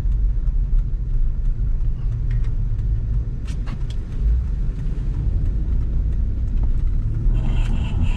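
Vehicle driving on snow-covered roads, heard from inside the cabin: a steady low rumble of engine and tyre noise, with a few light clicks a few seconds in and a brief higher rustle near the end.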